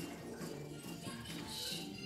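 Quiet music: a tune of low held notes, with a brief jingle-like hiss near the end.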